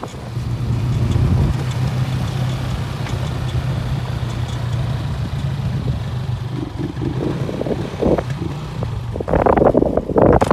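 A motor running steadily with a low, even hum. Near the end, wind buffets the microphone in loud gusts.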